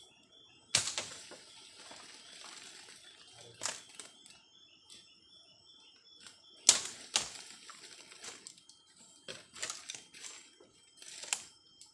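A blade chopping at bamboo and undergrowth: about eight sharp, irregular strokes, the loudest about two-thirds of the way through. Behind them runs a steady high-pitched insect drone.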